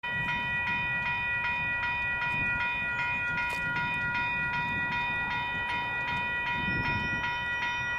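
Railway level crossing bell ringing with a steady, even stroke, about two and a half strikes a second, over a low rumble: the crossing signals are active for an approaching train.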